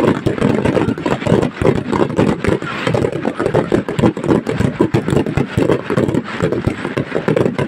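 A fireworks display: a dense barrage of shells bursting in rapid succession, a steady rumble of overlapping bangs and crackle with no gaps.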